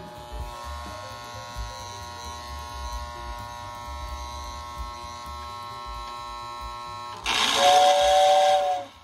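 Electric hum and buzz from the powered Lionel postwar toy train setup, then, about seven seconds in, a loud two-tone toy train whistle blast lasting about a second and a half.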